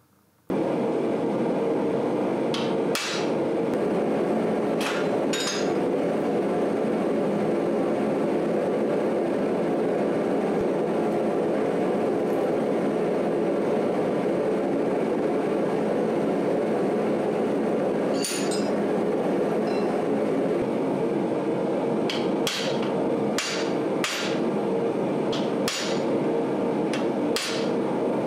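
Hammer blows on a 3/8-inch hand fuller set against red-hot steel held in a vise, as the eye bevels of a forged buzzard head are cut. The sharp metal strikes come singly and in pairs at first, then in a quicker run near the end, over a steady loud shop roar.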